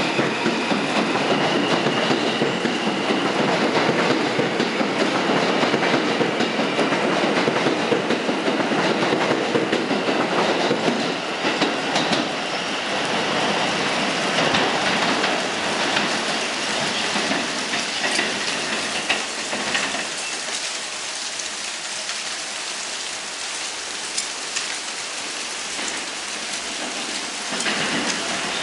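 An R160B subway train pulling out of the station and running away down the track, its wheels on the rails growing fainter after about ten seconds. Steady rain is heard throughout.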